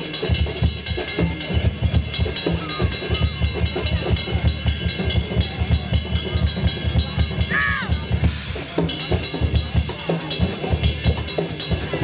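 Live jazz band playing: a drum kit with a busy bass drum, snare hits and ringing cymbals over a low bass line, with a short sliding high note about eight seconds in.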